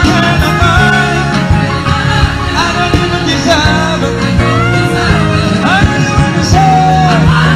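Live gospel praise song: a group of singers sings a melody over a band with a five-string electric bass guitar holding a steady low bass line.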